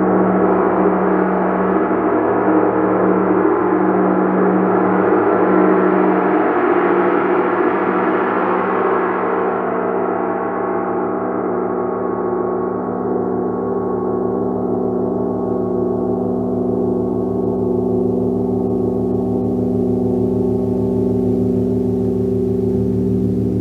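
A gong ringing in a sustained, dense wash of overtones. The upper overtones fade away from about ten seconds in, while the deep hum carries on at a steady level.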